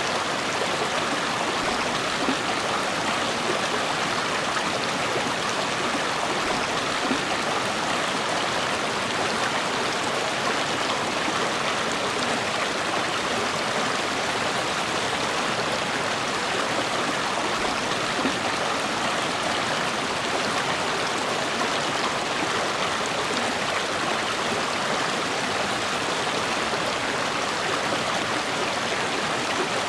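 River water running and splashing over rocks: a steady, even rushing.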